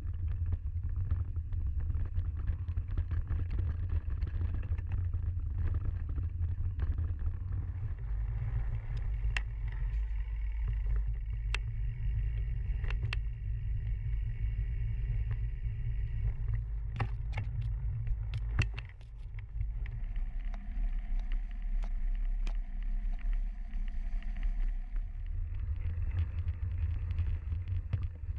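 Mountain bike riding a leaf-covered dirt trail, heard through an action camera: a steady low rumble of wind and ride vibration on the microphone, with several sharp knocks and rattles from the bike over rough ground around the middle.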